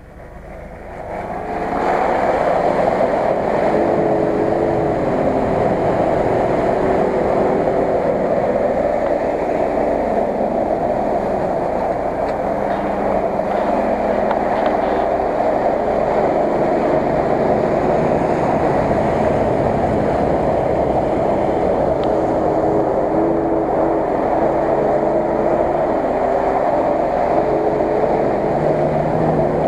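Nissan Patrol off-roader driving through shallow floodwater: engine running and water splashing together as one loud, steady noise that comes up about two seconds in and holds level, with a faint wavering engine note underneath.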